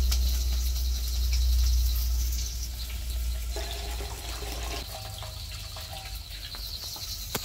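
Wash water poured in a thin stream into a half-full metal basin, splashing and gurgling; the pouring is loudest in the first couple of seconds and then eases off.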